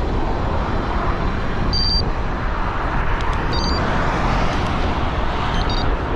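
Wind rushing over the camera microphone and tyre and road noise while riding a road bike along a main road. Passing traffic swells about halfway through, and three short high electronic beeps sound a couple of seconds apart.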